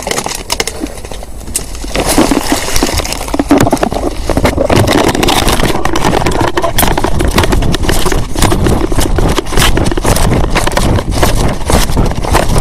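Handling noise from a small camera being carried and fumbled: its microphone rubbing and knocking against cloth and fingers in a dense run of irregular clicks, louder from about two seconds in.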